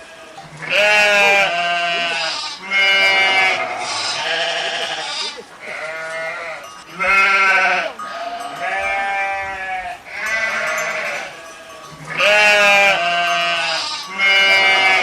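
Several sheep bleating one after another, about a dozen wavering calls at different pitches, some overlapping.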